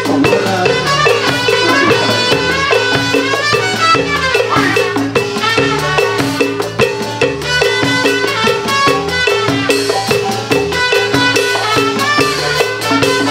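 Chiapas marimba band playing an instrumental passage of a lively tropical dance number, with bongos slapped in a fast rhythm and a steady bass line underneath.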